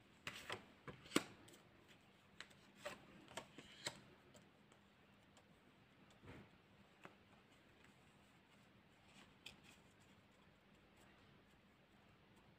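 Fortune-telling cards being dealt one at a time onto a stone floor: a run of small sharp clicks and slaps over the first four seconds, then a few faint taps.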